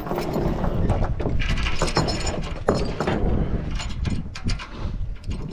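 Steel tie-down chain rattling and clanking on a wooden trailer deck, with a ratchet chain binder being worked to tighten it. The clanks come irregularly, one after another.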